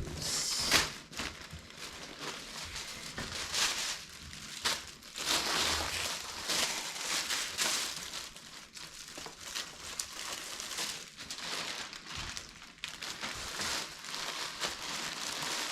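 Plastic packaging crinkling and rustling in irregular handfuls as a canvas tote bag is handled.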